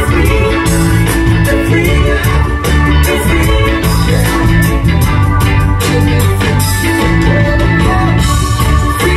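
Live reggae band playing loud through a concert PA, heard from the audience: a heavy bass line and a steady drum beat with electric guitar.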